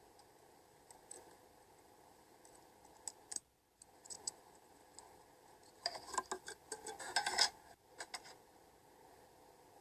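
Slime being worked by hand, making small sticky clicks and crackles: scattered at first, then a dense run of them about six seconds in that stops sharply near eight seconds.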